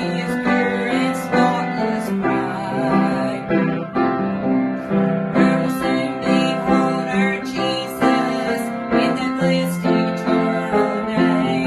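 Piano playing a gospel song with chords and a steady rhythm, with a voice singing along.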